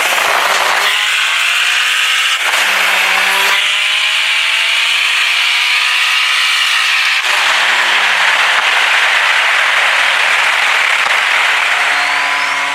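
Car engine under hard acceleration, its pitch climbing steadily and dropping sharply at gear shifts about 2.5 s and 7 s in, over a loud rushing noise.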